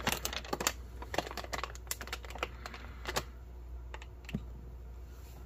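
Irregular light clicks and taps from objects being handled on a tabletop, bunched in the first three seconds and sparse after.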